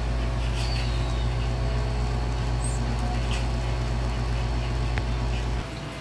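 Gemilai 3005G espresso machine's pump humming steadily during an espresso extraction. The hum cuts off near the end.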